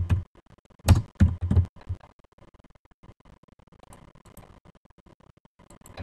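Computer keyboard keystrokes: a quick run of sharp, thumpy key clacks in the first two seconds, then faint scattered clicks, with one louder click near the end.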